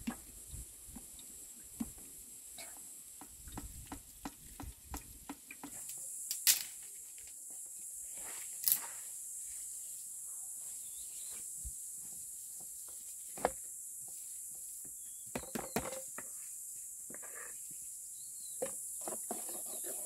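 Metal ladle stirring and scooping thick fruit pulp in the bowls and pot, with many small scrapes and a handful of sharp clinks of the ladle against the pot rim. A steady high hiss runs underneath and gets louder about six seconds in.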